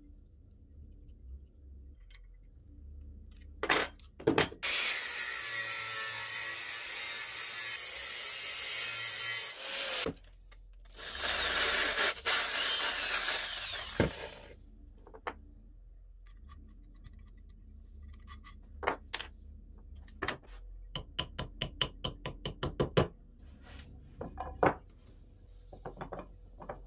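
A power tool running in two long bursts, about five and three seconds long, with a loud hissing noise, set off by a few single knocks. Later comes a quick even run of about a dozen light taps.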